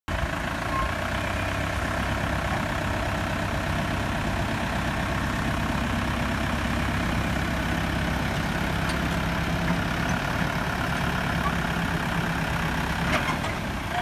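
Case tractor's diesel engine running steadily at an even speed.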